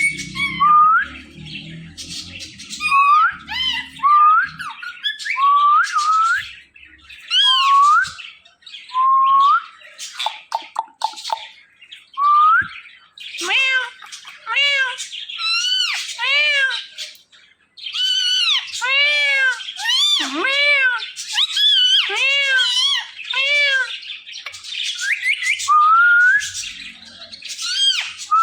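Pet ring-necked parakeet calling continuously. In the first half it gives a run of short rising whistled chirps with some quick chatter. From about halfway on it gives harsher, arched squawking calls in quick succession.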